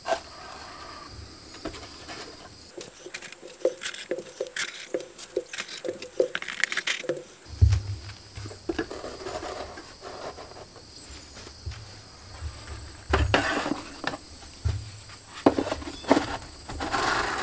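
Sanding discs slid and dropped onto the thin plywood shelves of a small storage cabinet: light scrapes of paper on wood and a run of small, even taps, about two a second. Near the end come louder knocks and rattles as a corded orbital sander is set into the cabinet's top compartment.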